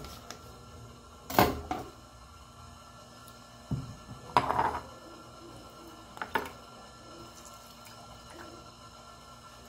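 A lime being cut with a knife and handled on a granite countertop: a few separate sharp knocks on the stone, the loudest about a second and a half in. Near the end, lime juice dripping into a glass of water.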